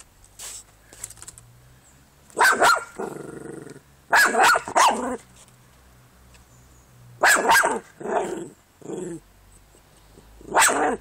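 Jack Russell terrier barking in four bouts of short, sharp barks a couple of seconds apart.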